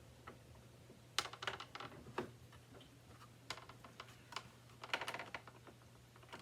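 Scattered light clicks and clatters of plastic vacuum-cleaner parts being handled, coming in short clusters over a faint steady low hum.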